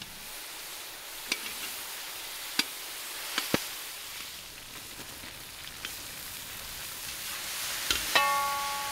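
Chunks of meat sizzling steadily in a wide metal pan over a fire, with a few sharp pops of spitting fat. Near the end a metal utensil clanks against the pan, which rings, and the sizzling grows louder.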